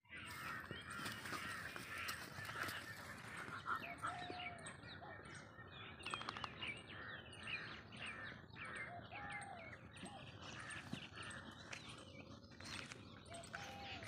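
Birds chirping repeatedly, many short high calls coming every fraction of a second, with a few brief lower held notes now and then.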